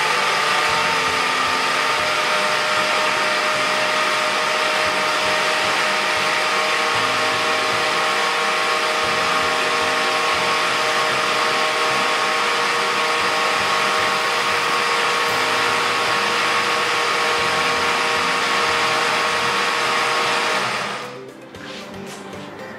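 Countertop electric blender running at a steady speed, mixing a liquid batter of banana, eggs, oil and sugar, with an even motor whine over the churning. It switches off about 21 seconds in and the noise dies away.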